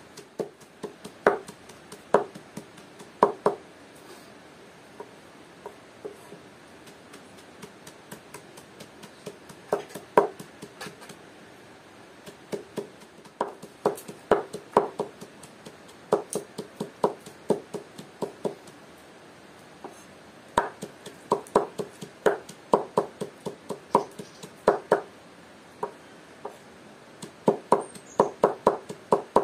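Knife chopping vegetables on a cutting board: sharp knocks in irregular runs of quick strokes, with short pauses between the runs.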